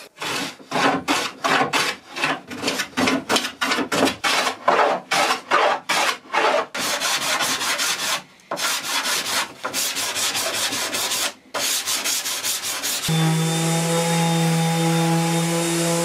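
Hand sanding the edge of a wooden board: abrasive rubbed in quick back-and-forth strokes. About thirteen seconds in, an electric random orbital sander starts and runs with a steady hum.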